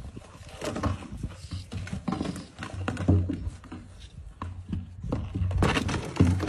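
A husky playing with a plastic water bucket: irregular knocks and scrapes as the bucket is shoved and rolled across the ground, along with the dog's own play noises. It grows busier and louder near the end.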